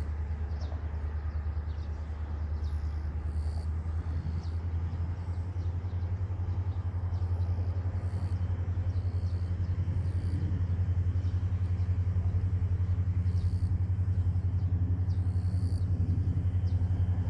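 Diesel locomotive's engine heard from a distance as a low steady hum with a fast throb, growing gradually louder as it approaches hauling an oil-tank freight train.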